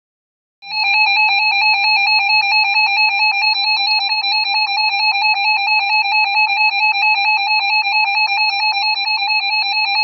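Emergency alert alarm from a small speaker: a loud, shrill electronic beep that pulses many times a second without a break, starting about half a second in and stopping about at the end. It is the attention alarm that comes before a broadcast severe thunderstorm warning.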